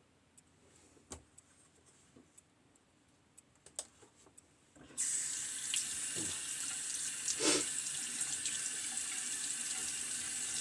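A few light clicks, then about five seconds in a sink faucet turns on suddenly and runs steadily as the razor parts are rinsed under it, with a clunk in the running water a couple of seconds later.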